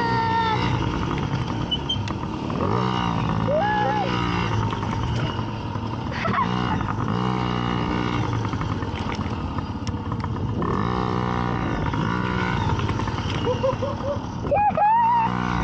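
Small dirt bike engines running and revving up and down repeatedly as the bikes ride laps.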